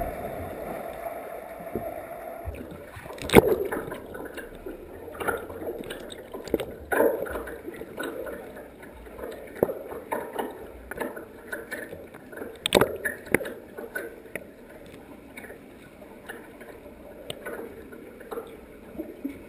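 Muffled underwater sound of a swimming pool picked up by a submerged camera. A bubbly rush for the first couple of seconds, then a wash of water noise with irregular knocks and clicks; the loudest knocks come about three and a half and thirteen seconds in.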